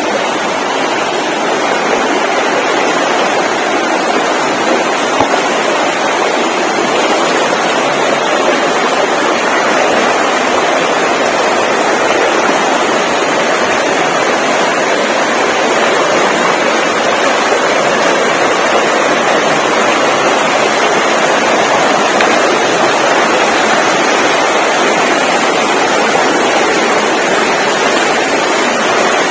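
A loud, steady rushing noise, even and unbroken, like running water or wind.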